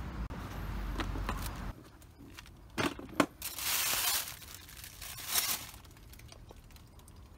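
Handling noise on concrete. A metal fuel bottle is set down with a sharp knock, then a plastic bag rustles in two bursts. A low rumble runs under the first second and a half.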